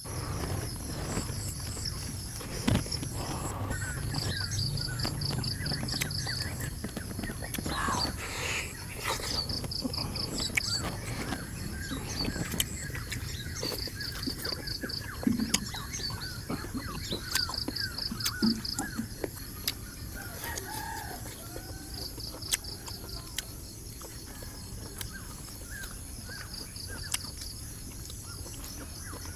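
Farmyard chickens clucking and calling in many short notes, over an outdoor background with a high pulsing trill that recurs every few seconds.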